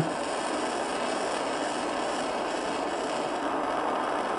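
Gas torch flame hissing steadily while it heats a watch wheel to temper-colour it. The oxide is at the straw-colour stage on its way to blue.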